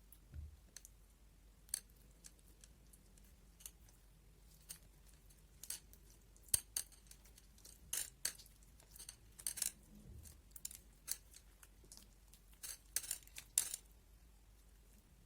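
Sticky slime with sprinkles being pressed and pulled by hand: irregular small sharp clicks and pops, coming thicker in the second half.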